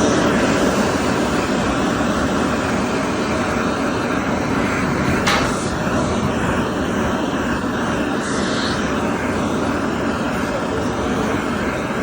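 Bobrick Aircraft B-750 hot-air hand dryer running with a loud, steady blowing rush. There is one short sharp sound about five seconds in.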